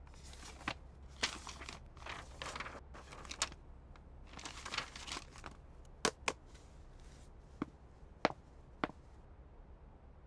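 Paper and a plastic document folder rustling and crinkling as they are handled at a desk, followed by five short, sharp taps as things are set down.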